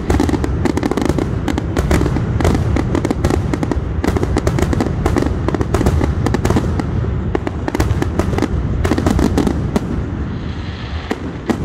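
Aerial fireworks finale barrage: shells bursting in rapid, nearly continuous succession, many bangs a second. The bangs ease briefly into a crackling hiss near the end.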